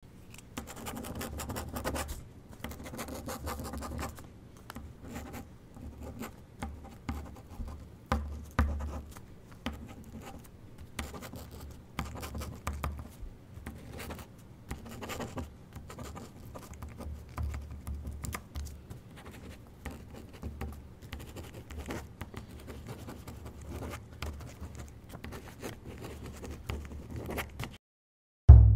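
Fine-tip pen scratching on lined notebook paper as a sentence is handwritten, in short irregular strokes with brief pauses between letters and words. Near the end the writing stops and a loud low tone cuts in.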